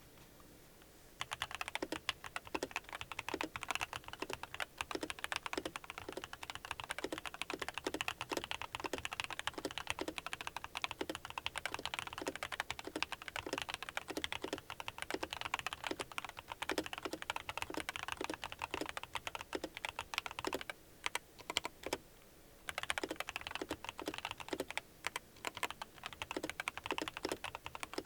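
Mechanical keyboard fitted with Cherry-profile PBT keycaps, typed on quickly and steadily in a sound test. The typing starts about a second in and pauses briefly near the end.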